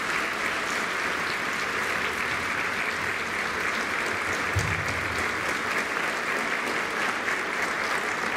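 Audience applauding steadily, a dense even clapping that starts just before and fades away just after, with one brief low thump about halfway through.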